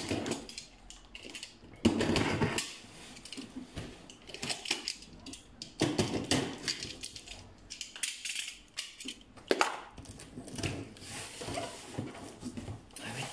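Utility knife slicing and scraping through packing tape along a cardboard box in irregular bursts, with a sharp snap about two-thirds of the way through, then cardboard flaps being pulled open with crinkling and rustling.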